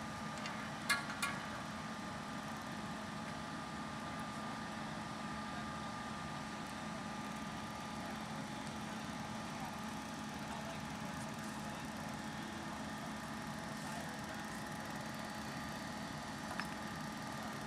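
Fire apparatus diesel engine running steadily at idle, a constant hum with a few faint clicks about a second in.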